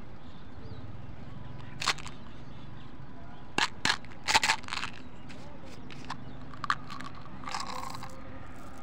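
Sharp plastic clicks and crackles as the cap of a small plastic candy bottle is twisted and pried off, loudest about halfway through, then a short rattle of candy-coated chocolates tipping out into a hand near the end, over a steady low hum.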